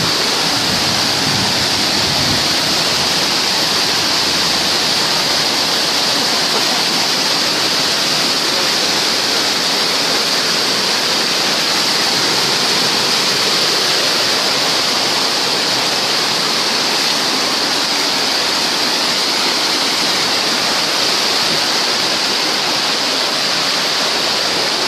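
Rushing river water: a steady, loud hiss of fast-flowing water that does not let up.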